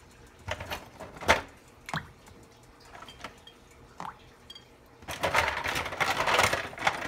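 Ice cubes clinking and clattering as a hand takes them from a plastic ice bin and drops them into a tub of water: a few separate clinks, the loudest a little over a second in, then a dense rattle of ice being rummaged from about five seconds in.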